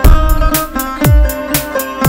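Background music with a steady beat: a deep kick drum about twice a second under plucked string notes.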